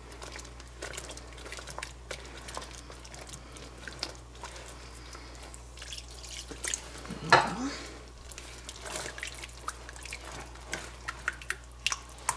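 A whisk stirring gravy in a pan as water is added a little at a time: scattered light clicks of the whisk against the pan and wet, dripping liquid sounds.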